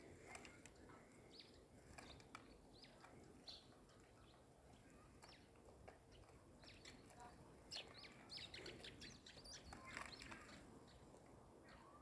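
Faint, scattered short chirps of small songbirds at winter bird feeders, coming more often from about seven seconds in.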